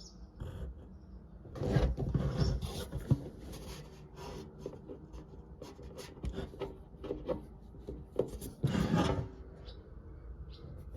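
Hook-and-loop (Velcro) straps being worked, with two louder rasping rips about two seconds in and again near nine seconds, between scattered light knocks and rubbing.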